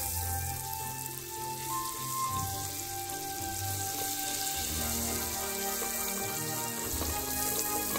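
Butter sizzling steadily as it melts over low heat in a hot pan of pork-chop drippings, stirred with a silicone spatula. Background music with steady tones plays underneath.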